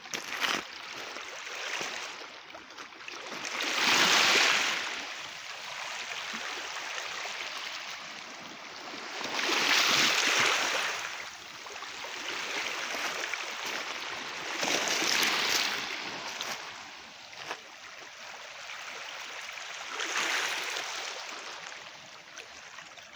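Small waves lapping and washing over a pebble shore, with four louder washes coming about five to six seconds apart.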